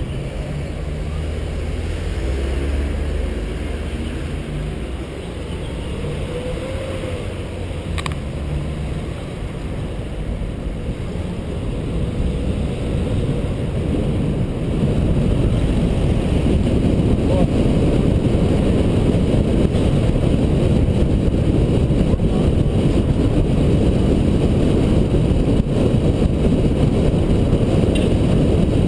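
Car driving on a town street, picked up by a microphone on the bonnet: low engine hum, tyre and road noise, and wind rumble. It grows louder about halfway through.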